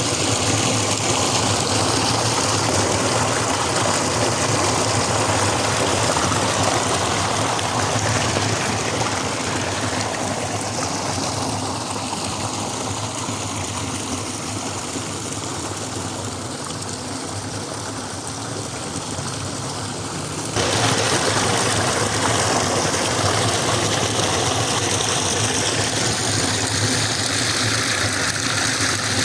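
Small stream flowing, a steady rush of water. About two-thirds of the way through it turns suddenly louder and brighter.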